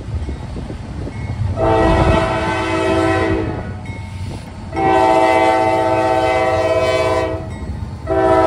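Norfolk Southern diesel freight locomotive's air horn sounding a chord in two long blasts and then a short one, the opening of the long-long-short-long grade-crossing signal. Under it runs the low rumble of the approaching locomotive.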